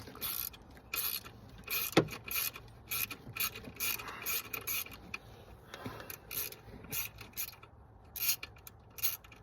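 Hand ratchet clicking in short runs of back-strokes while turning the long coil pack mounting screws, with one sharper metal knock about two seconds in.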